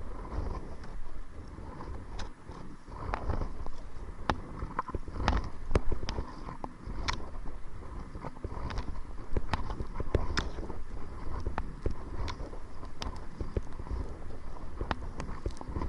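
Kayak paddling into the wind: uneven knocks and splashy clicks from the paddle and water against the hull, over a low rumble of wind on the microphone.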